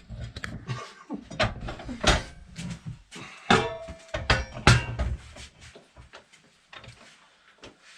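Heavy steel box section being handled and set into a metal chop saw's vise: a string of irregular clanks and knocks, one about three and a half seconds in ringing on briefly with a metallic tone. It grows quieter near the end.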